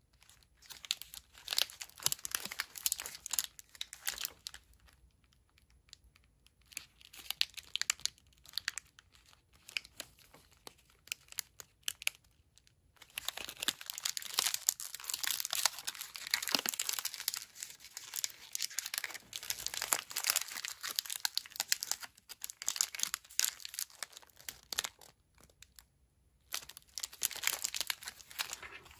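Foil wrapper of a nougat-and-fruit bar crinkling as it is handled and turned in the hands, in several spells of crackling with short pauses, the longest in the middle.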